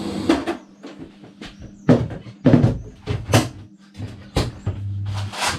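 A series of about six sharp, irregularly spaced knocks and clicks over a steady low hum.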